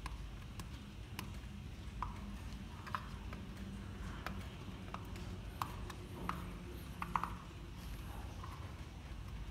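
Faint, scattered taps and clicks from a thin brass clock pendulum bob being handled and pressed with the thumbs to push out a dent, about half a dozen over several seconds, above a low steady hum.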